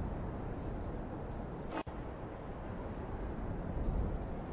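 Crickets trilling steadily in a high, rapidly pulsing note over a low background hiss, with a brief click and dropout a little under two seconds in.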